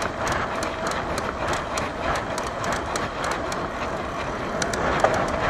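Mountain bike rolling along a paved road, heard from the handlebars: a steady rush of wind and tyre noise, with frequent light clicks and rattles from the bike.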